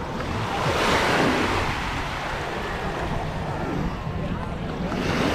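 Small surf breaking and washing up the beach, swelling about a second in and again near the end, with wind rumbling on the microphone.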